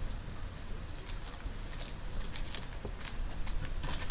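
Trading cards being handled and slid against each other: scattered soft crisp clicks and rustles, over a steady low hum.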